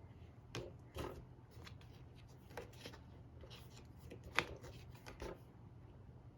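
Faint scattered clicks and taps as a toothbrush holder's part is handled and opened, with the sharpest click about four seconds in.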